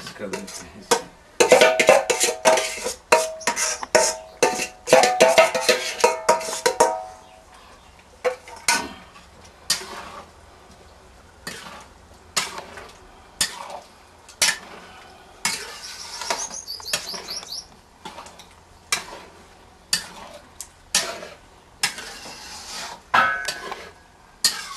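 Metal spatula scraping and clanking against a metal kadhai as a thick potato-and-chickpea curry is stirred. The strokes come fast for the first several seconds, then slow to about one scrape a second.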